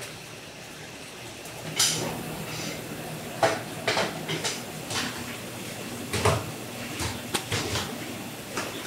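Wooden tofu-pressing frames knocking and clattering as they are stacked one on another in a metal rack, over a steady low machine hum.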